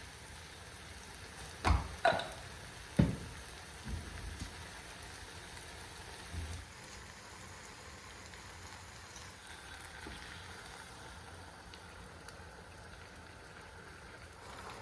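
A few sharp knocks of kitchenware in the first three seconds, then a steady soft hiss.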